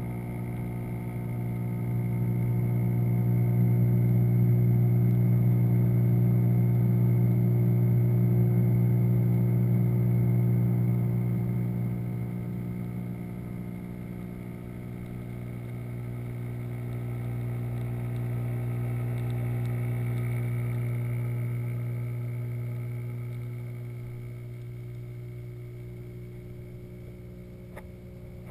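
Steady electric hum of the aquarium's water pump motor, heard underwater through the submerged camera, swelling and fading as the camera moves closer to and away from it.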